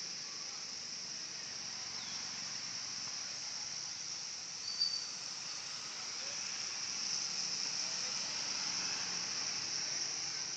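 Swiftlet call recording: a dense, steady chorus of high twittering chirps from a swiftlet colony, of the kind played to lure swiftlets into a nesting house. One sharper, louder chirp stands out about five seconds in.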